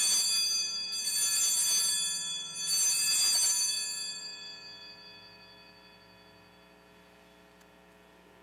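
Altar bells rung three times, about a second and a half apart, ringing clear and high and fading away over a couple of seconds after the last stroke; the ringing marks the elevation of the consecrated host at Mass.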